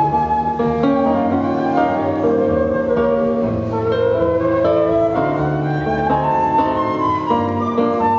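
Live instrumental music: a wind instrument plays a flowing melody of held notes over lower sustained accompanying notes.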